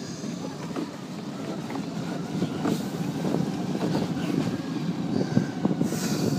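Sinclair C5 electric trike on the move: a steady rumble from the tyres and body, with many small knocks and rattles, growing gradually louder, and some wind on the microphone.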